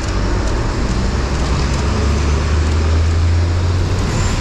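Road traffic: a steady rush of traffic noise with a low engine drone that builds over a couple of seconds and then fades, as a vehicle passes close by.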